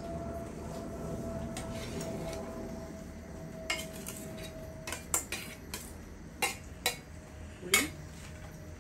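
A spoon stirring a pot of thick odiyal kool porridge, with soft scraping and swishing. In the second half it clinks sharply against the pot about eight times, the loudest clink near the end.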